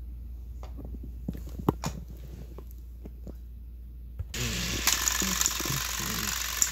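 Light clicks and taps of plastic toy engines being handled. About four seconds in, a steady whirring rattle starts abruptly: the motors of battery-powered Thomas & Friends toy engines running on plastic track.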